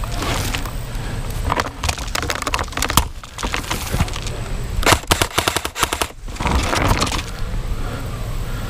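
Airsoft guns firing several rapid bursts of sharp clacks, the densest and loudest run about five seconds in.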